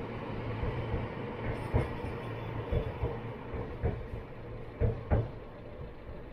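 Freight wagons loaded with crushed stone rolling past: a steady rumble with sharp knocks as the wheels cross rail joints, some in quick pairs. It fades as the last wagon goes by.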